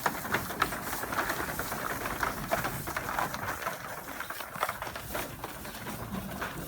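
Goats moving about in their pen: scattered clicks and knocks over a rustling noise, with no bleating.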